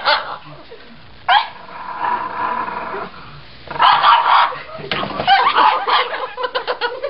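An angry pug growling and barking in bursts, with a run of rapid short sounds near the end.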